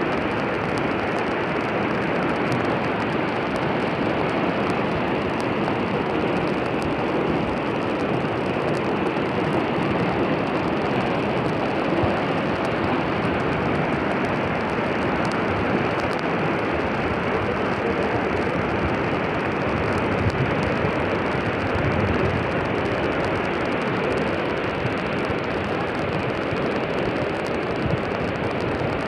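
Floodwater rushing and churning along a flooded street, a steady noise with no letup.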